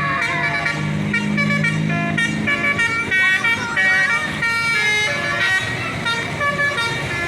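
A 'telolet basuri' multi-tone bus horn playing a melody in short stepped notes, over a bus engine running and people's voices calling out.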